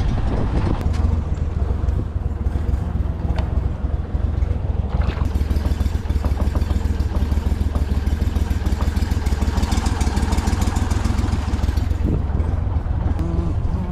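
Go-Devil surface-drive mud motor running steadily, pushing the boat along.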